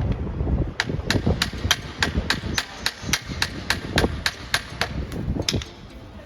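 A rapid, very even series of sharp knocks, about three to four a second, starting about a second in and stopping shortly before the end.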